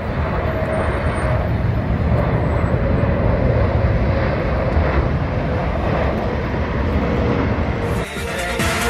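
Jet aircraft engine noise, a loud steady rush with a faint whine slowly falling in pitch as the plane passes. About eight seconds in it cuts abruptly to electronic music.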